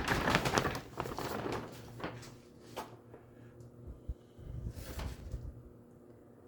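Household handling noises: a busy clatter at the start, then a few single knocks and a short scraping rush, over a faint steady hum.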